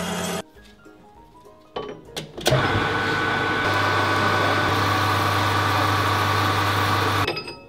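Metal-working machine tools, a lathe and a milling machine, running and cutting steel: a steady machine noise with a low hum joining partway. It starts after a few knocks about two seconds in and stops shortly before the end.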